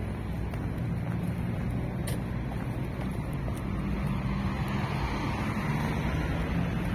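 Steady street traffic noise: vehicle engines running with a low hum, and a single short click about two seconds in.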